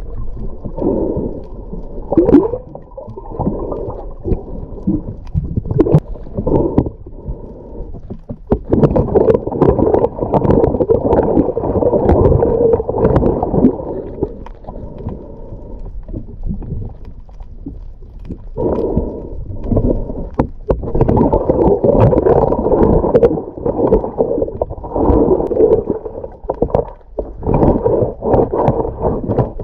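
Muffled underwater noise heard through a camera housing beneath a sailboat hull: irregular gurgling and churning water with scattered knocks. It grows busier and louder for a stretch about a third of the way in and again near the end.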